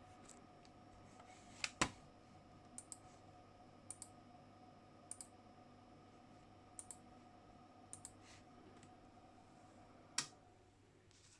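Faint, sharp button clicks at a computer, mostly in quick pairs of press and release, about seven times at roughly one-second intervals, over a faint steady electrical hum.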